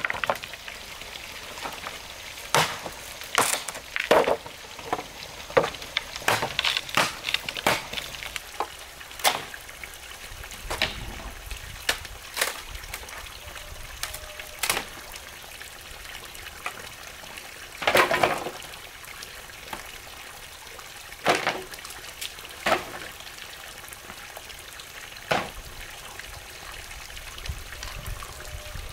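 Water pouring steadily from a pipe outlet into a pond, with scattered sharp knocks and clatters of bamboo tubes and poles being handled; the loudest cluster of knocks comes a little past the middle.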